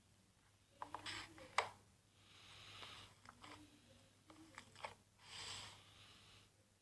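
Slime being squeezed and pulled by hand: quiet sharp crackles and pops come in two clusters, with soft airy swells between them.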